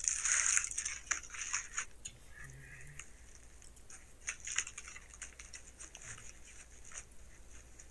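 Aluminium foil wrapper crinkling and crackling as hands unwrap a foil-wrapped burger. It is heaviest in the first two seconds, then thins to scattered crackles and handling clicks.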